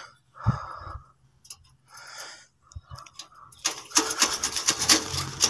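Rusty wire mesh being pulled and scraped off a metal cage frame by hand: a few scattered rustles and scrapes, then from a little past halfway a denser run of crackling clicks and metal scraping.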